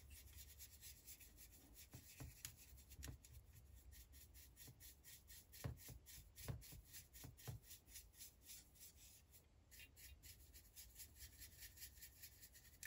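Faint, repeated strokes of a soft brush rubbing weathering powder into the plastic shell of an HO scale model tank car, with a few slightly louder strokes about halfway through.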